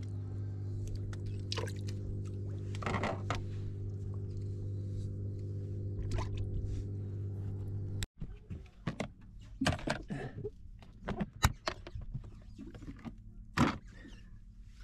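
A boat engine's steady low hum, cut off abruptly about halfway through. Then scattered clicks and knocks of fishing tackle and a cooler box being handled, with two sharper knocks near the end.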